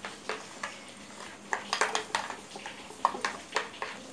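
A spoon stirring thick moong dal batter in a glass bowl, clinking and scraping against the glass in irregular strokes, a few a second.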